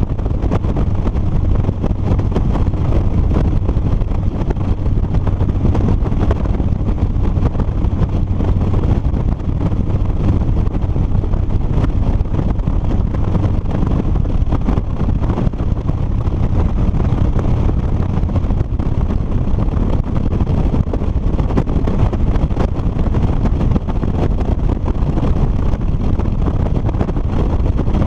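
2007 Harley-Davidson Street Bob's Twin Cam 96 V-twin running at a steady cruise, mixed with heavy wind noise on the helmet-mounted microphone. The sound holds steady with no gear changes or revving.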